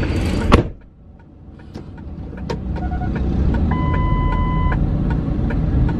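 A car door shuts with a sharp thud, and the outside noise drops away. The SUV's low engine and road rumble then builds and holds steady as it gets under way, with faint regular ticking and a steady electronic beep lasting about a second a little past the middle.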